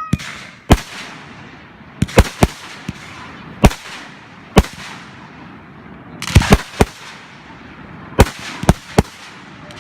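Fireworks going off: about a dozen sharp bangs at irregular intervals, some in quick pairs or triplets, each trailing off in a short rumbling echo.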